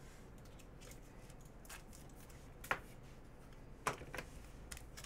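Trading cards handled in the hands: faint slides and taps of card against card, with a couple of sharper clicks partway through.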